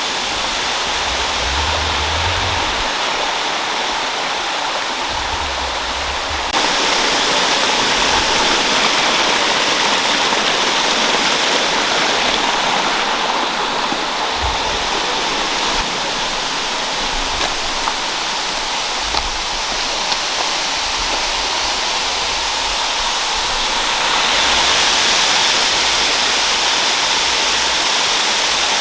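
Third Vault Falls waterfall pouring: a steady rush of falling water that grows louder about six seconds in and again near the end.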